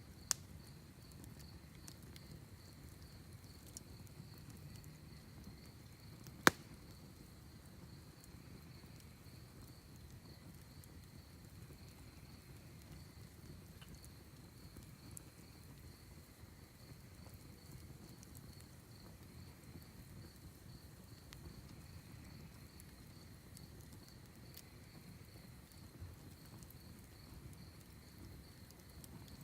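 Crickets chirping in a steady, high, pulsing trill over a low campfire with scattered faint crackles and two sharp wood pops, the louder one about six seconds in.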